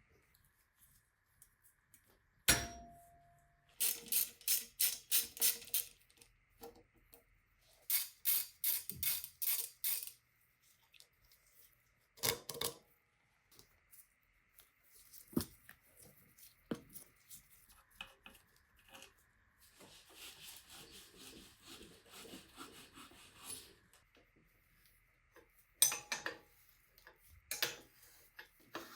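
Metal parts and tools being handled on a bicycle: a sharp metallic knock with a brief ringing tone, then two bursts of rapid strokes or clicks, about five or six a second, with scattered knocks and a faint steady high tone underneath.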